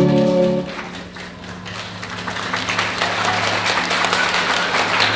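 Recorded ballet music ends on a held chord about half a second in, then audience applause builds from scattered claps into steady clapping.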